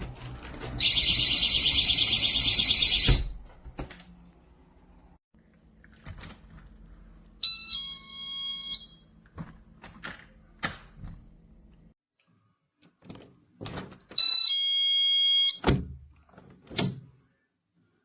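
Battery-powered magnetic door/window alarm sounding a shrill, rapidly warbling siren for about two seconds, cutting off suddenly. Later it gives a short stepped electronic chime twice, with clicks and knocks between.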